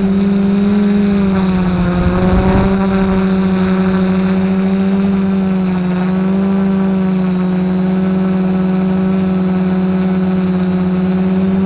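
F450 quadcopter's four brushless motors and propellers droning, heard through the camera mounted on the frame: a steady hum whose pitch wavers slightly as the throttle is adjusted, with a brief rush of noise about two seconds in.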